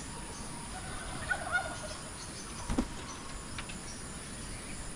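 A bird gives a short run of quick, wavering calls about a second in. Just before three seconds there is a single knock, over a steady outdoor background hiss.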